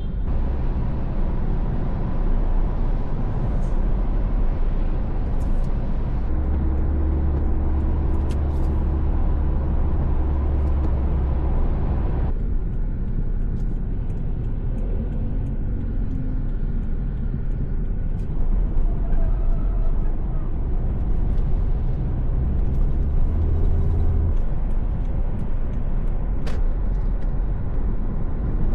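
A car driving at speed: a steady rumble of engine and road noise, with a few faint clicks.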